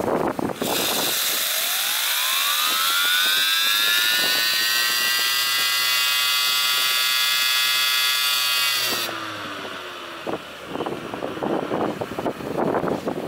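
Homemade miniature steam turbine, driven by steam from a model steam-engine boiler. The steam comes on with a loud hiss about half a second in, and the turbine's whine rises steeply in pitch to a steady high speed. Near nine seconds the steam is shut off: the hiss stops and the whine falls as the turbine runs down, while wind buffets the microphone.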